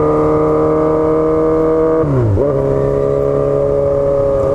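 2010 Kawasaki Z1000's inline-four running very loud through Black Widow full race headers and Vance & Hines Urban Brawler mufflers, holding a steady note. About two seconds in, the pitch drops sharply and then settles steady again. The engine has not been tuned for the new exhaust, and the rider thinks it needs a tuner.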